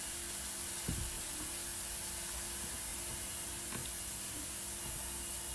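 Steady low hiss with a faint constant hum: kitchen room tone, with a faint soft tap about a second in as the pastry is handled.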